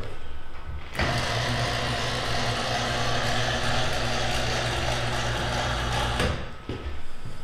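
Electric motor of a Hill chiropractic table running steadily for about five seconds as the table is lowered, starting about a second in and cutting off sharply.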